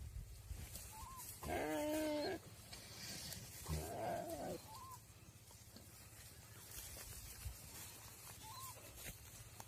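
A deer giving distress cries while being eaten alive by a Komodo dragon: one loud, clearly pitched bleat about a second and a half in, then a second, hoarser cry about two seconds later.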